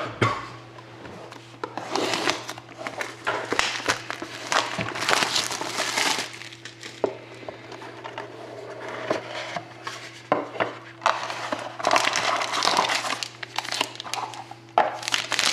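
Hands handling and opening a cardboard trading-card box and lifting out a foil-wrapped pack: irregular rustling and crinkling with light knocks, over a steady low hum.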